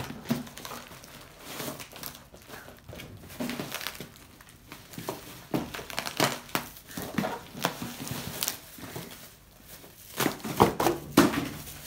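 Plastic packaging crinkling and rustling in irregular bursts as a taped parcel and its bagged contents are unwrapped, with louder crackles near the end.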